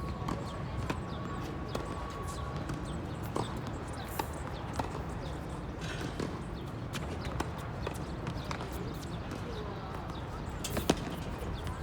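Tennis play on a hard court: scattered knocks of tennis balls bouncing and being hit, with one sharp racket strike on the ball near the end.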